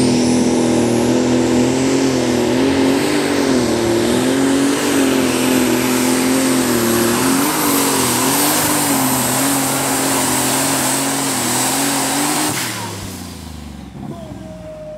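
Super Stock pulling tractor's turbocharged, methanol-fuelled engine running flat out during a pull, its note wavering up and down under a steady high turbo whine. About 12 seconds in the sound drops off sharply as the pull ends, leaving the engine running much lower and quieter.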